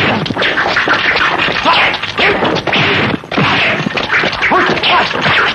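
Martial arts film fight sound effects: a fast run of punch and kick hits, one after another, mixed with short shouts and grunts from the fighters.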